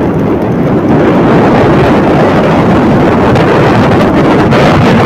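Loud, steady wind noise buffeting the microphone of a camera riding on a moving motorcycle, mixed with the rumble of the ride along the road.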